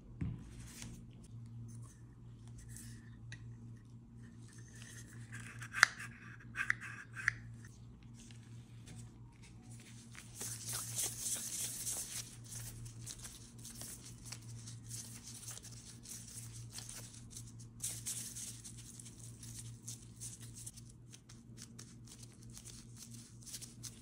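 Plastic food-prep gloves and plastic wrap crinkling as hands take and flatten a piece of maamoul dough, with a few sharp clicks about six seconds in and a steady low hum underneath.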